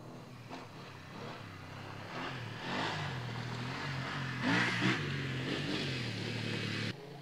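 BMW F850GS parallel-twin engine riding up and past close by, growing louder as it approaches, loudest about two-thirds of the way through, its revs rising and falling with the throttle. The sound cuts off abruptly near the end.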